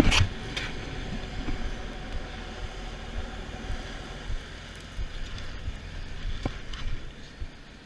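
A sportfishing boat under way: steady engine rumble and the hiss of wake water, with wind noise on the microphone. A sharp knock at the very start, then a few faint ticks.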